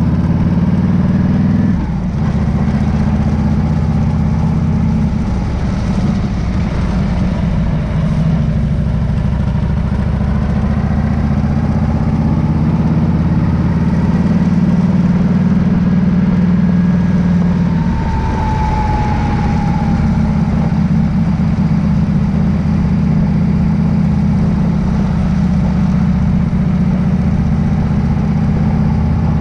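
A car running, with a steady low drone of engine and road noise that dips briefly about two seconds in and shifts in character about eighteen seconds in.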